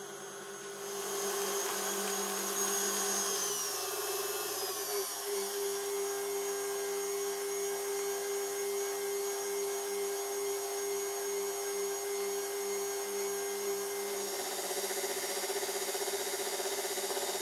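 KitchenAid stand mixer running, beating a creamed butter mixture: its motor whine starts about a second in, drops in pitch a few seconds later, then holds steady, growing a little louder near the end.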